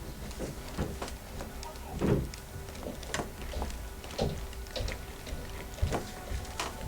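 Scattered clicks and light knocks, one or two a second, over a low steady hum, with a duller thud about two seconds in.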